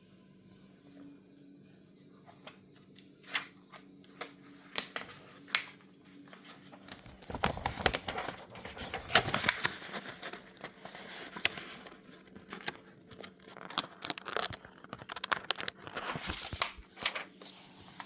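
Packaging being handled and torn: scattered clicks and knocks, then from about seven seconds in a long stretch of tearing and crinkling with sharp clicks.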